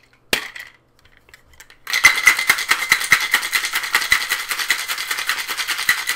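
A single knock shortly after the start, then, from about two seconds in, ice cubes rattling hard and fast inside a metal-and-glass Boston cocktail shaker being shaken vigorously. The ice is chilling vodka and peach schnapps.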